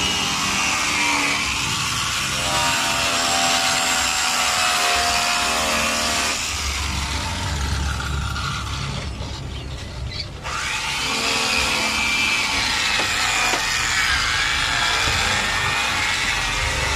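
Angle grinder fitted with a buffing pad running against the edge of a white granite countertop, buffing it with wax: a steady motor whine over a rubbing hiss. The grinder is on a 110-volt adapter, so it spins less aggressively. The sound dips about nine seconds in and picks back up a second later.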